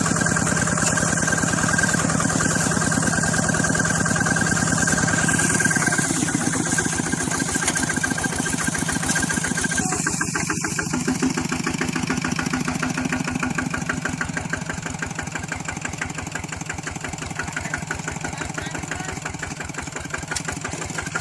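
Small engine running steadily with an even, rapid firing rhythm, getting gradually quieter after about six seconds.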